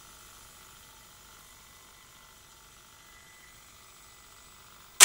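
Skantic VCR-LP video recorder (a Philips N1700 clone) running with a faint steady hum and a thin whine, then a single sharp mechanical clunk near the end as the machine shuts itself down, a fault it keeps showing.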